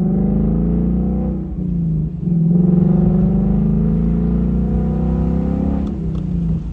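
2019 Ford Mustang GT's 5.0-litre V8 in track mode, heard from the driver's seat with the top down. The exhaust note rises in pitch under acceleration, dips briefly about two seconds in, climbs again, and eases off near the end.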